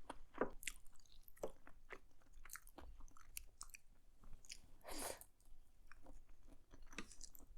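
A person chewing a mouthful of black bean noodles: faint, irregular wet mouth clicks and smacks, with a louder one about five seconds in.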